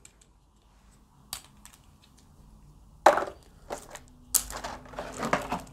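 Plastic clicks, knocks and rustling from a beard trimmer and its accessories being handled, with the trimmer's protective blade cap being taken off. There are a few sharp knocks, the loudest about three seconds and about four and a half seconds in.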